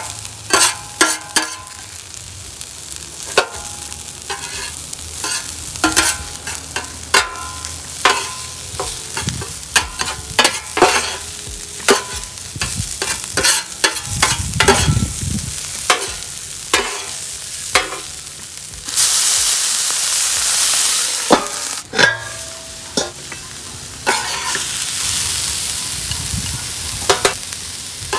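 Metal spatula scraping and clacking on a flat-top griddle while stir-frying cauliflower rice and broccoli, with steady sizzling beneath. About two-thirds of the way in, the sizzling swells into a loud hiss for about two and a half seconds.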